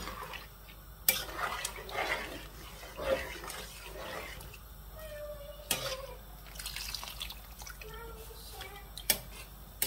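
A metal ladle stirring watery meat curry in a large aluminium pot, the liquid sloshing, with a sharp clink of the ladle against the pot four times.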